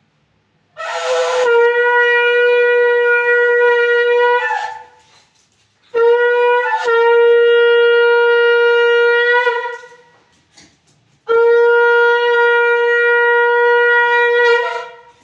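A conch shell (shankh) blown three times at puja, each blast a long, steady, single-pitched note of about four seconds with short breaths between.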